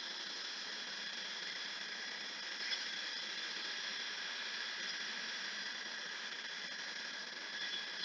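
Jet engine running steadily: a continuous high whine and hiss with no change in pitch.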